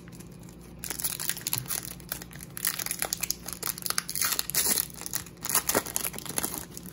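Foil wrapper of an Upper Deck hockey card pack being torn open and crinkled by hand: a run of crackling and rustling that starts about a second in.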